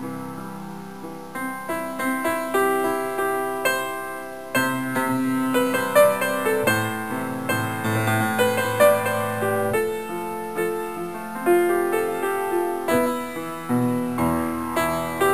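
Background piano music: a gentle melody of struck notes, about two a second, each fading away.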